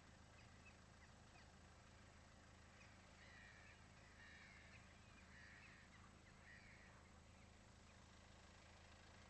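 Faint calls of a large gull colony in flight, a few harsh calls clustering between about three and seven seconds in, over a steady low hum.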